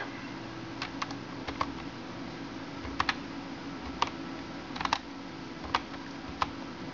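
Keys pressed one at a time on a computer keyboard as a multi-digit ID number is typed in: about a dozen separate keystrokes, unevenly spaced and some in quick pairs, over a steady low hum.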